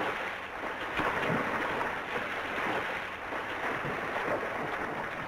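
Water splashing and churning as a man swims, under a steady hiss.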